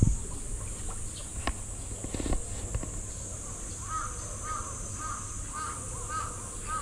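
A bird calling a quick run of short, harsh notes, about two a second, starting a little past halfway, over a steady high-pitched hiss. A couple of sharp knocks come earlier.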